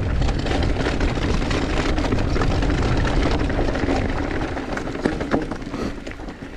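Mountain bike descending a rough trail: wind rushing on the microphone and tyre noise, with many rattling clicks and knocks from the bike over bumps. The rush eases off in the last couple of seconds.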